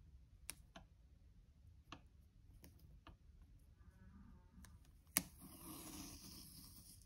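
Washi tape being handled and laid on a planner page: a few faint clicks and taps, then a sharp click about five seconds in followed by a rough, rasping sound of tape pulled off the roll and rubbed down on the paper for the last two seconds.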